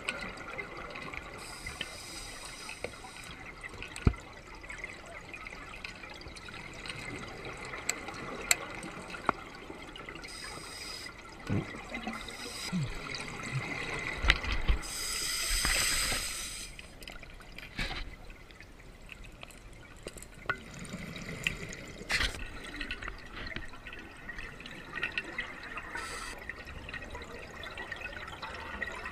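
Underwater sound through a camera housing: a diver's exhaled bubbles rushing in bursts every several seconds, the longest about halfway through, over a steady water hiss, with scattered clicks and knocks of gear.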